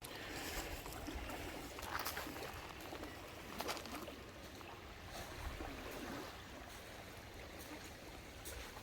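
Small waves washing gently on the stony Lake Ontario shoreline, a steady quiet wash with a few faint knocks.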